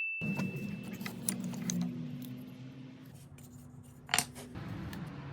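A high metallic ring fading out, then scattered clicks and taps of small objects being handled over a low steady hum, with one sharper knock about four seconds in.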